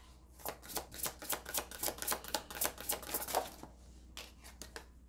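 Deck of tarot or oracle cards being shuffled by hand: a quick run of light card slaps and flicks for about three seconds, then a few more after a short pause.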